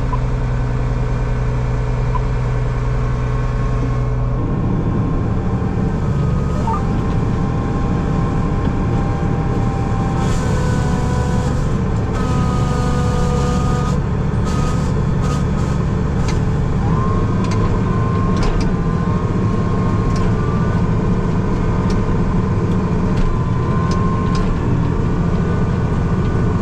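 Farm tractor engine running steadily, heard from inside the cab as it pulls a soybean planter; its note changes about four seconds in, with a faint wavering whine and scattered clicks and rattles later on.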